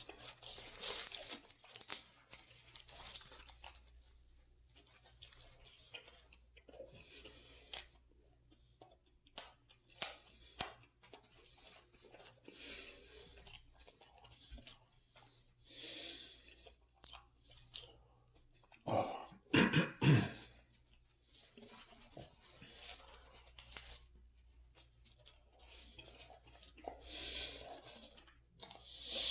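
A person chewing and crunching food in irregular bites. About twenty seconds in there are two louder, deeper sounds.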